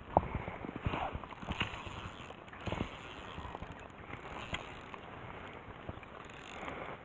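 Irregular light knocks and clicks with some rubbing: handling noise from the fly rod, line and reel being worked aboard a small boat while fly line is stripped in by hand.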